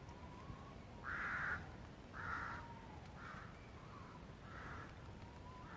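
A bird giving a series of five short, harsh calls, the first two loudest and the rest fainter, with a faint drawn-out note in the background.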